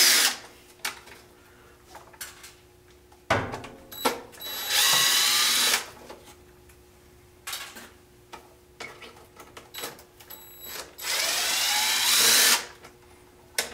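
Cordless DeWalt impact driver running in short bursts, a second or two each, about four and eleven seconds in, as it backs out the small body screws of an RC truck. Light clicks of handling and screws come between the runs.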